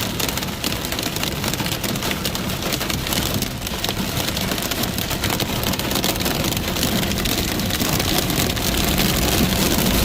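Heavy rain with hail pelting down in a dense, steady patter of sharp hits, over a steady low hum.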